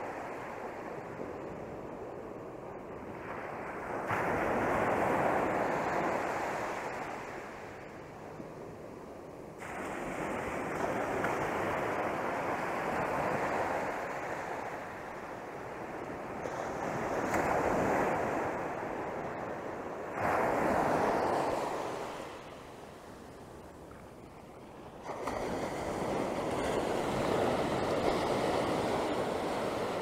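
Ocean surf: waves breaking and washing up a sandy beach as a steady rush that swells and ebbs. Fresh surges come in sharply about four, ten, twenty and twenty-five seconds in.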